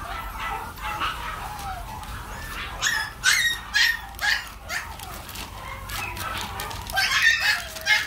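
Two small mixed-breed puppies play-fighting, giving short whines and yips, with a run of sharp, loud yaps about three seconds in and again near the end.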